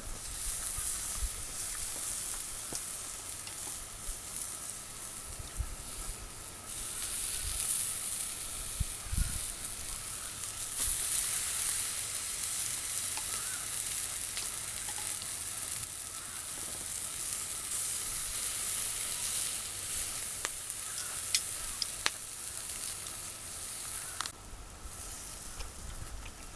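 Food sizzling as it fries, a steady hiss with a few small pops.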